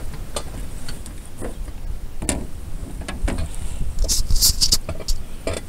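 Knocks and rattles of a landing net holding a flathead catfish being swung in and set down on a metal boat deck, with a quick loud flurry of rattling about four seconds in, over a low rumble.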